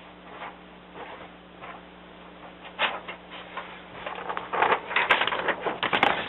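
Paper being handled and rustled. A few soft clicks come first, then busier, louder rustling in the last two seconds, over a faint steady hum.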